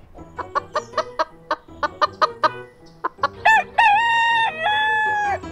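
Rooster clucking in a quick run of short clucks, then breaking into a long, drawn-out cock-a-doodle-doo crow about three seconds in.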